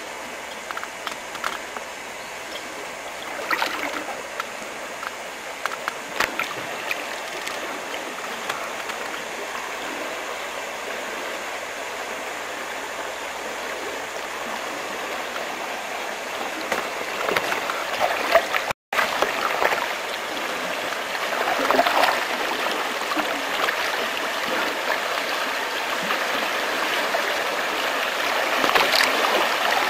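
Steady rush of river rapids ahead, growing slowly louder as the canoe nears them, with occasional splashes of paddle strokes.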